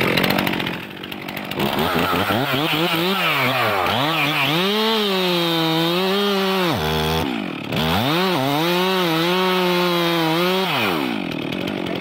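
Stihl MS 362 C two-stroke chainsaw cutting into the base of a tree trunk at full throttle, the engine pitch sagging and recovering as the chain bites under load. A little past the middle it twice drops briefly toward idle before revving up again, and near the end the revs fall off once more.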